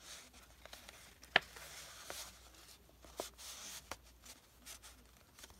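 Paper and cardstock handled and rustling faintly, with one sharp click about a second and a half in and a couple of lighter ticks a little later.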